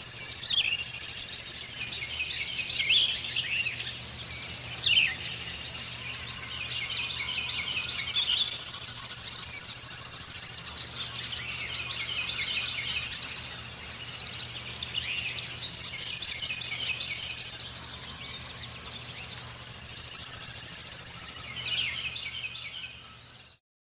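Birdsong: one bird repeats a high, rapid trill in phrases of two to three seconds with short pauses between them, while other birds chirp more softly at a lower pitch. The recording cuts off abruptly near the end.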